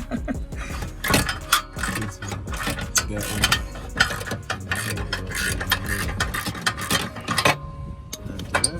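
Hand socket ratchet clicking in quick runs as bolts are turned, stopping near the end.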